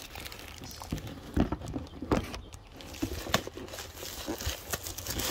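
Cardboard packaging of an air filter being handled and pried open: irregular knocks and taps with rustling, the loudest knocks about one and a half and two seconds in.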